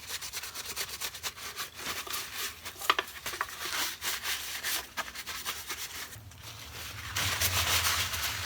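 Hands handling and rubbing the plastic parts of a metal detector: scattered small clicks and scrapes, then a denser stretch of rubbing for the last couple of seconds.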